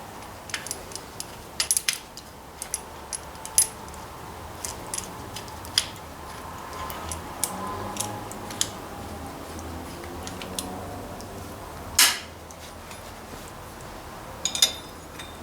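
Hand tools clinking on metal: vice grips being worked and clamped onto a large threaded nut, with scattered sharp clicks, a louder knock about twelve seconds in and a quick run of clicks near the end.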